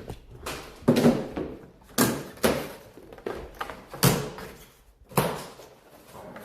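Five sharp bangs and thumps at irregular intervals, each dying away quickly.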